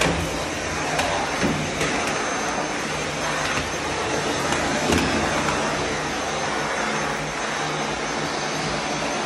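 Vacuum cleaner running steadily, a constant rushing noise with a thin high whine, with a few light knocks as the floor nozzle is worked along the tiled floor and skirting.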